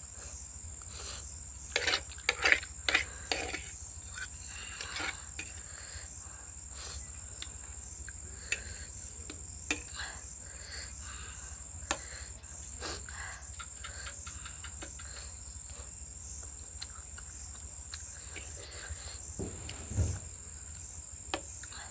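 A steady high-pitched chirring of crickets, with scattered short clicks and clinks of utensils and a bowl as noodles are eaten. There is a cluster of these clicks a couple of seconds in and a louder knock near the end.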